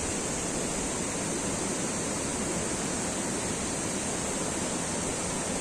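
Steady rush of flowing river and irrigation-channel water, an even hiss with no breaks.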